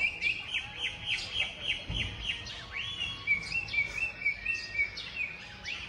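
Songbird chirping: a quick series of falling chirps, about three a second, that changes about halfway through into a run of short, even notes. A dull low thump about two seconds in.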